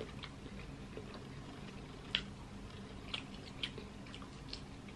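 Faint, wet eating sounds as seafood in sauce is picked apart with the fingers and eaten: a few scattered small clicks over a low, steady background.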